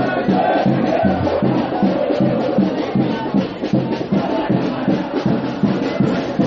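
Football supporters' samba drum section (bateria) beating a steady fast rhythm, about three strokes a second, while the crowd sings and chants along.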